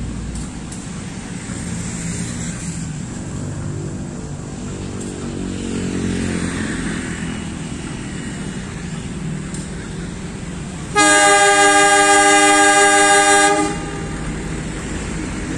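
Diesel locomotive idling steadily, then sounding its horn in one long blast of nearly three seconds, several tones at once, near the end. The blast is semboyan 35, the driver's reply to the departure signal before the train moves off.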